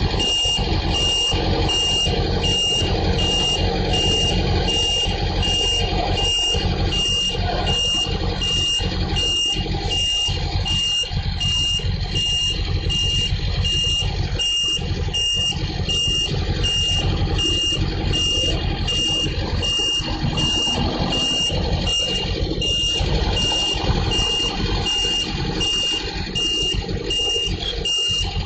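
Garbage truck's engine running under its reversing alarm, which beeps steadily about one and a half times a second.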